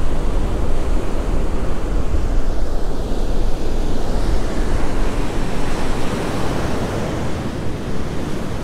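Ocean surf breaking and washing up the beach in a steady rush, with wind buffeting the microphone in a low rumble.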